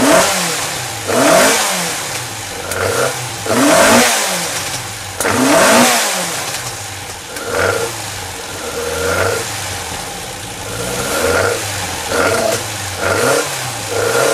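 1.8-litre Ford Crossflow pushrod four-cylinder engine on a dyno, blipped again and again: it revs up and falls back about every second or two, with no steady hold.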